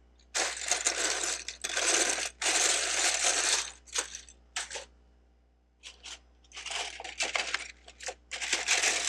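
Loose plastic Lego bricks clattering and rattling as a hand sifts through a pile of them, in several bursts of about a second each with a short lull about halfway through.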